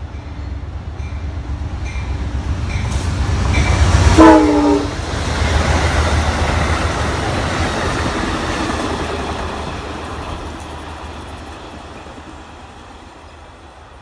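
Amtrak GE P42DC diesel locomotive passing at speed: the rumble builds as it nears, it sounds a short horn blast about four seconds in whose pitch drops as it goes by, then the passenger cars rush past with a clickety-clack that fades as the train moves away.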